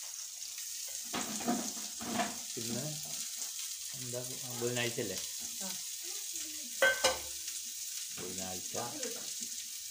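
Chopped garlic and green chillies sizzling steadily in hot oil in a pan as they are sautéed and stirred. A brief knock, likely a utensil against the pan, comes about seven seconds in.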